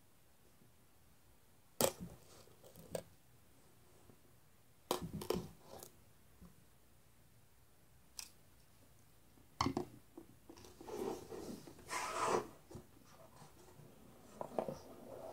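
Close-miked folding pocket knife slicing the seals on a cardboard box, in several short, sharp crackling cuts with quiet between. About halfway through come longer stretches of cardboard rubbing and scraping as the box lid is worked loose.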